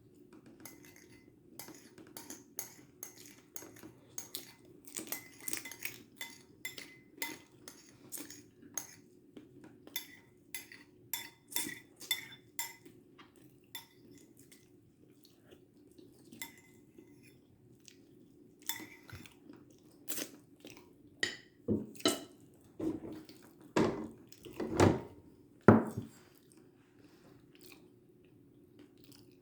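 Cutlery and dishes clinking: many quick, ringing taps of utensils on plates through the first half, then a handful of heavier, duller knocks in the second half, over a faint steady hum.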